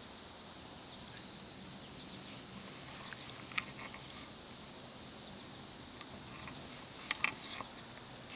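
An insect's steady high trill, fading out about two and a half seconds in, over quiet creekside ambience. A few short sharp ticks come about three and a half seconds in and again near the end.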